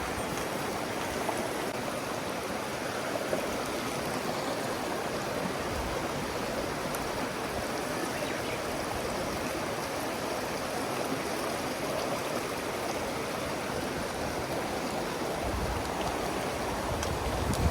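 Mountain stream water rushing and burbling over rocks, a steady even rush close by.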